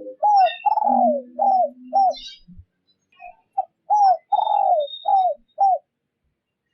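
Spotted dove cooing in two quick runs of arching coos, four and then six after a short pause. This is a decoy call used to provoke wild males. Faint high chirps sound between the runs.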